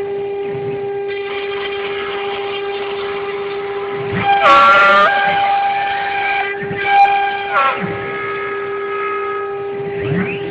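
CNC router cutting foam: the spindle holds a steady high whine, while the drive motors add tones that slide up and down as the machine moves, louder for a second or so about four seconds in.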